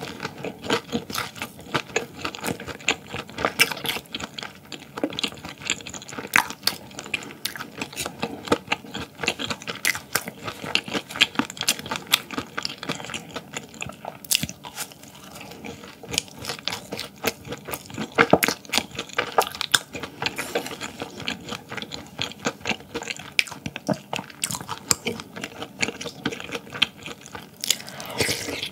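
Close-miked chewing and crunching of food, a rapid run of crisp crackles and mouth sounds.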